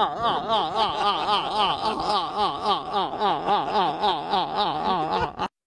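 A man laughing hard in one long run of rapid pulsing laughs, the pitch wavering up and down about four times a second; it cuts off suddenly near the end.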